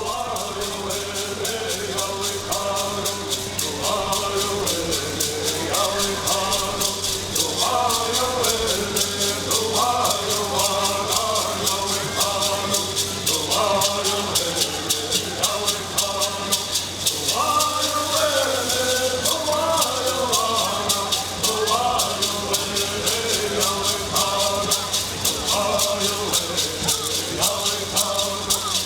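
Bird song of the Agua Caliente Cahuilla: voices singing repeated phrases over a steady, fast shaking of rattles.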